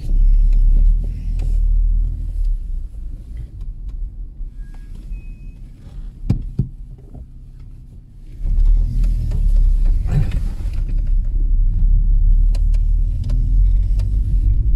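Car driving, a low rumble of engine and road noise. It drops away for a few seconds in the middle and picks up strongly again about eight and a half seconds in.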